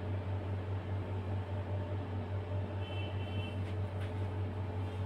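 Steady low electrical hum, with a few faint scrapes of a palette knife spreading whipped cream on a cake sponge partway through.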